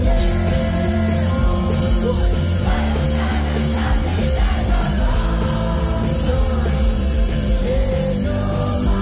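Live rock band playing loudly through a concert PA, with heavy bass, a steady beat and a male lead vocal.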